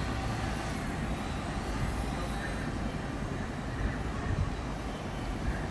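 Steady low rumble of distant vehicles and engines, with no single event standing out.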